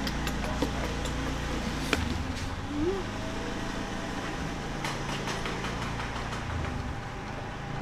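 Steady low mechanical hum, with a few faint clicks and one short rising sound about three seconds in.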